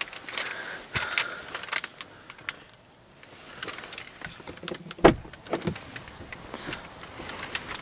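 Scattered clicks and rustling of handling inside a car cabin, with one sharp knock about five seconds in followed by a few lighter taps.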